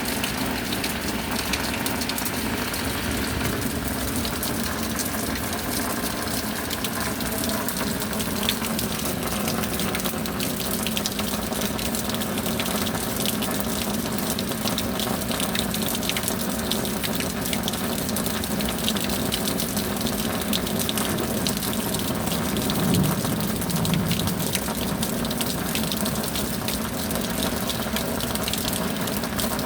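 Steady rain falling: a dense, even hiss of drops.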